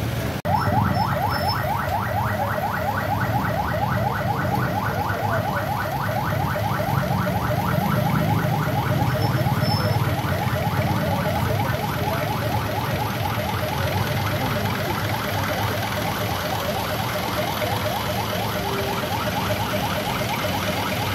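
Vehicle engines idling in street traffic, with a fast, evenly repeating rising chirp over them from about half a second in that fades near the end.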